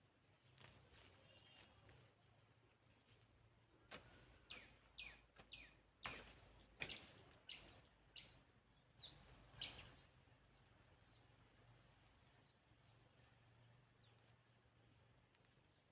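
A bird calling: a run of short chirps, each sliding down in pitch, from about four seconds in to about ten seconds in, over quiet background noise.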